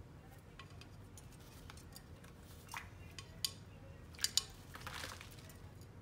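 Quaker parrot bathing in a plastic water bowl, splashing and fluttering its wings in the water. Scattered splashes and light clinks, with two sharp clicks close together about four seconds in and a longer splashing rush just after.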